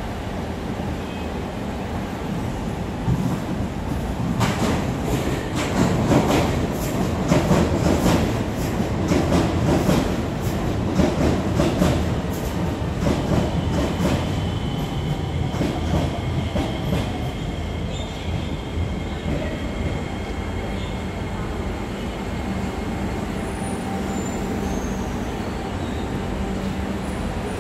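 SMRT metro trains running on elevated track: wheels clattering rapidly over rail joints through the middle, the loudest part, then a thin wheel squeal as a train slows into the station.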